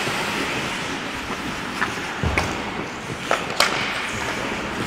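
Ice hockey rink ambience: skate blades scraping on the ice over a steady hiss, with several sharp clacks of sticks and puck, the loudest about three and a half seconds in.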